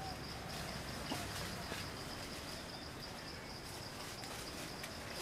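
Insects droning in one steady high note over forest ambience, with a few faint short chirps.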